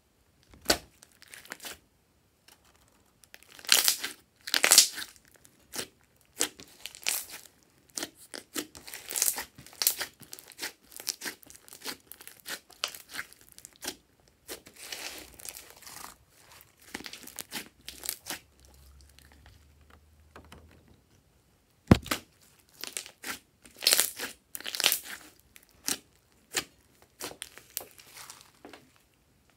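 Hands pressing, spreading and stretching glossy slime with small beads mixed in, giving irregular wet crackles and squelches. There is one sharp click about three quarters of the way through.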